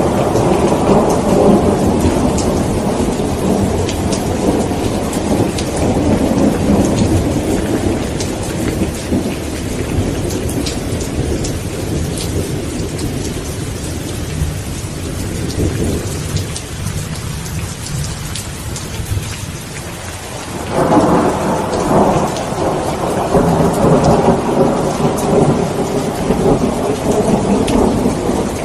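Steady heavy rain with rolling thunder. A long rumble slowly fades, and about two-thirds of the way through a new peal of thunder starts suddenly and rolls on to the end.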